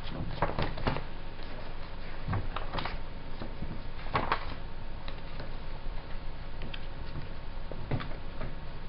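A paperback picture book being handled and opened, with a few short clicks and knocks over a steady background hiss.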